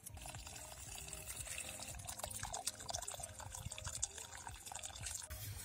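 Water pouring from a tipped steel pot into a steel bowl, splashing and trickling as the rinse water is drained off raw meat.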